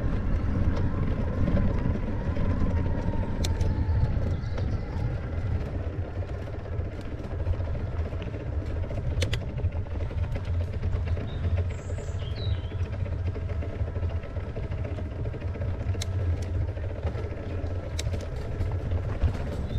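Mountain bike rolling along a dirt trail: a steady low rumble of knobbly tyres on the track and wind on the handlebar-mounted camera, with occasional sharp clicks and rattles. There is a brief high chirp about twelve seconds in.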